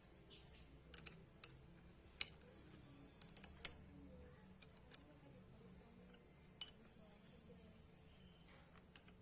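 Scattered light clicks and taps of small metal parts being handled, a dozen or so at irregular intervals.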